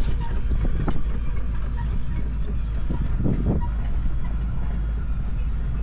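Heavy diesel machinery running with a steady low rumble, broken by a few sharp metal knocks and clanks.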